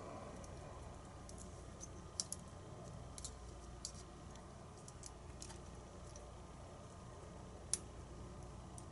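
Scattered small clicks and taps of metal tools and parts on a lock cylinder being taken apart, a dozen or so irregular ticks with the sharpest one near the end.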